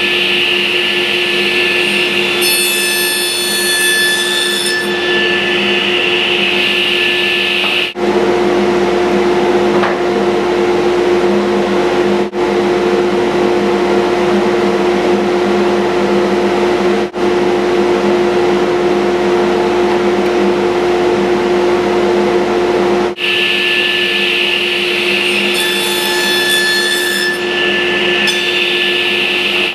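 Table saw running with a dado blade fitted, a steady whine with several fixed tones, as it cuts spline slots across the mitred corners of cherry picture frames. The sound shifts abruptly several times, and a high ringing appears briefly twice, near the start and near the end.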